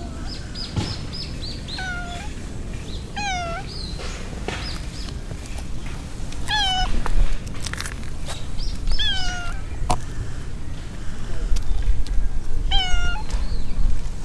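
Silver tabby cat meowing five times, short meows spread a few seconds apart, each falling slightly in pitch at its end.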